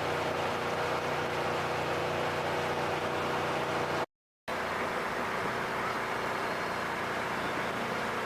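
An engine running steadily at a constant speed, with no revving. It cuts out abruptly about four seconds in and, after half a second of silence, a different steady engine sound takes over.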